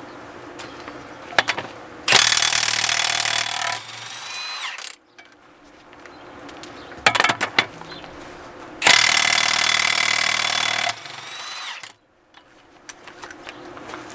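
Impact wrench running in two bursts of about two to three seconds each, each winding down at the end, on the tractor's wheel nuts during a tire swap. A few short metallic clicks come before each burst.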